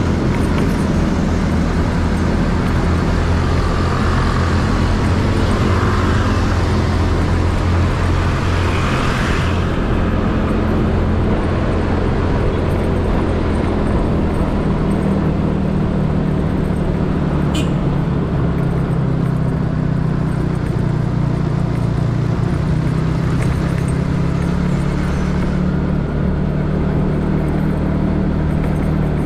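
Yamaha Mio scooter's small single-cylinder engine running while riding, its pitch shifting as the speed changes, with wind noise on the microphone that eases off about a third of the way in.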